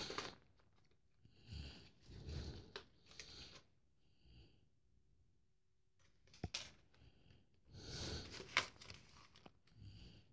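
Packaging being torn and rustled as a box is opened by hand, in several short bursts with quiet gaps, and a few sharp clicks.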